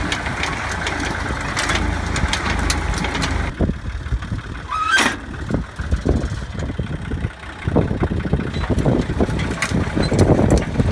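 Tractor engine running with machinery clatter. A little past three seconds the sound changes abruptly: a single sharp click follows, then irregular, uneven rumbling.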